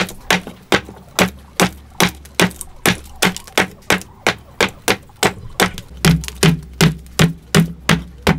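An axe chopping into the end of a round wooden log post, shaving off chips. The strikes come steadily, about two and a half a second, and sound deeper and heavier from about six seconds in.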